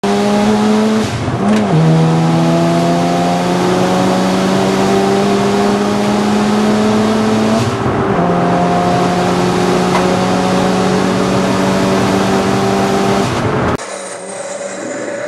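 In-cabin sound of a turbocharged Mazda RX-7 FD3S's bridge-ported 13B rotary engine pulling hard, its pitch climbing slowly through each gear, with gear changes about a second and a half in and about eight seconds in. The engine is fresh and being run in, held under 6500 rpm. Near the end the sound drops to a quieter car engine heard from outside.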